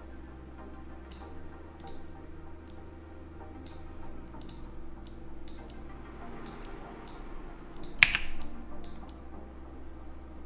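Scattered computer keyboard and mouse clicks, with one louder click about eight seconds in, over faint steady background music and hum.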